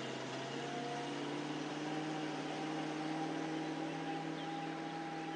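A vehicle engine running steadily: a low hum with a higher whine held above it, over a background hiss.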